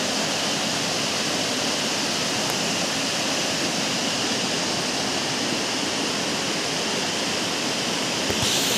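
Waterfall: water rushing and cascading over rock into a pool, a steady hiss. A little before the end it turns slightly louder and brighter.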